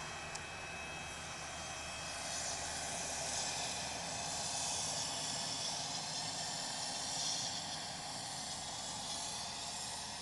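Deicing truck at work: a steady low engine hum under a rushing hiss from the spray, the hiss swelling for several seconds in the middle.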